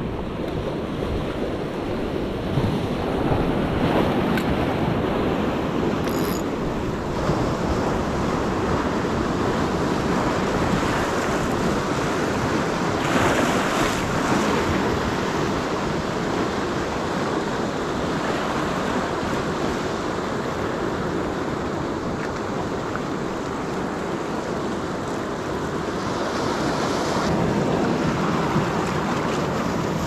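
Sea surf washing over and breaking against rocks: a steady rushing that swells louder several times, with wind buffeting the microphone.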